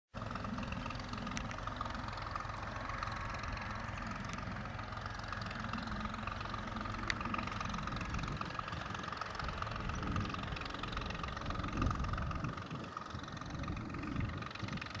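Massey Ferguson 135 tractor engine running steadily under load, driving a rotary hay tedder.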